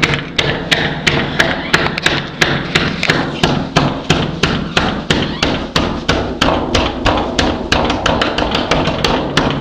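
A fist pounding a hard floor in a steady rhythm, about three knocks a second.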